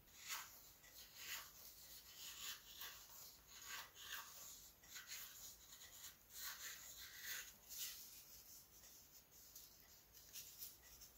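Knife shaving a balsa wood propeller blade, thinning it from the backside: faint, irregular scraping strokes, about one or two a second.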